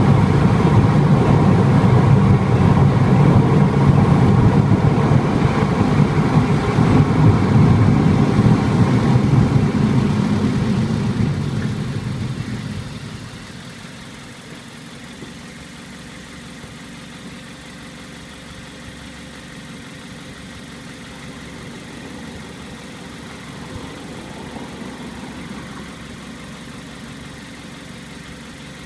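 A car's road and engine noise while driving, fading over a second or so about twelve seconds in as the car slows to a stop, then the engine idling quietly and steadily.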